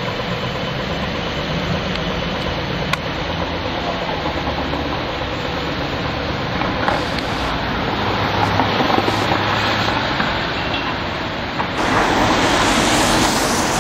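Street traffic on a wet road with a Siemens Combino low-floor tram rolling past: a steady hiss of tyres and a low hum, growing louder and brighter near the end.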